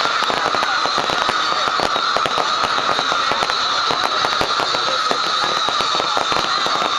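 Fireworks display crackling in a dense, rapid stream of small pops over a steady hiss.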